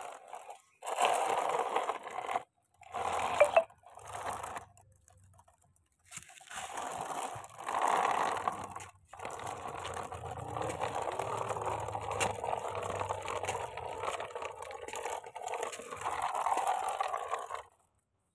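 Small plastic wheels of a toy dump truck rolling and scraping over rough concrete as it is pushed by hand. The sound comes in several short stretches broken by abrupt gaps, then runs on in one long stretch until it cuts off near the end.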